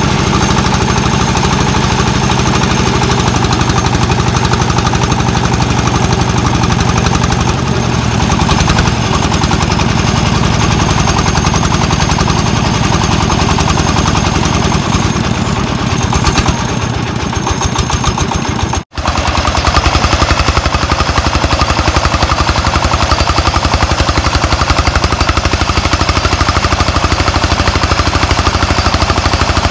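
Single-cylinder diesel engine of a công nông farm truck running with a rapid, even chugging beat. The sound cuts off sharply about 19 seconds in and resumes at once with the same kind of engine chugging.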